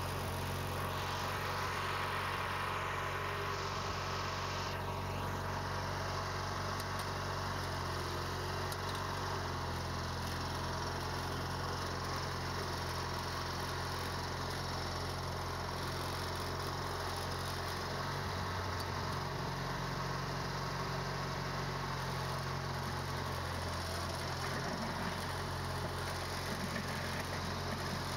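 MTD garden tractor's engine running steadily as the tractor plows snow with a front blade.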